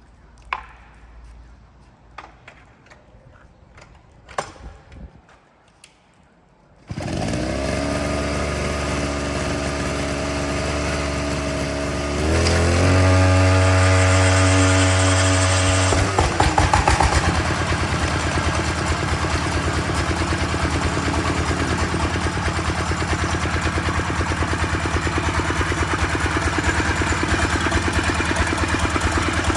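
D30 single-cylinder diesel engine being cranked by a motor-driven starter rig. After a few faint knocks, a steady motor whine starts suddenly about seven seconds in and gets louder around twelve seconds. About sixteen seconds in the engine catches and runs on with a regular knocking beat.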